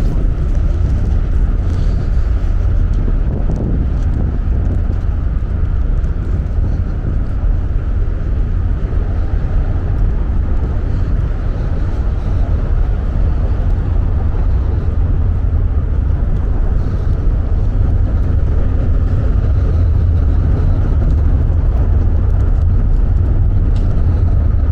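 Steady wind rumble buffeting a small handheld camera's microphone in a snowstorm: a loud, even low roar without a break.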